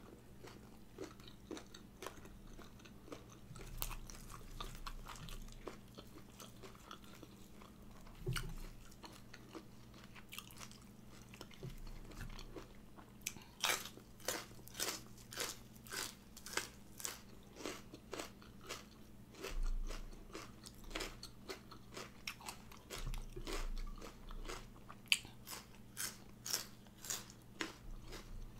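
Close-up mouth sounds of a person biting and chewing crunchy raw vegetables with spicy raw shrimp salad. The crunches are scattered at first, then come quickly and regularly from about halfway through, roughly two to three a second.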